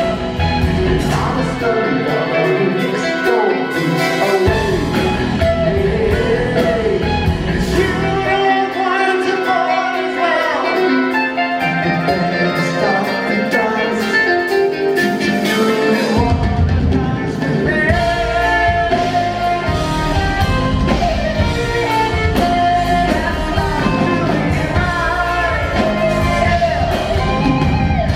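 Live progressive rock band playing, with singing and electric guitar over keyboards. The bass and drums drop out twice for a few seconds, then the full band comes back in about halfway through.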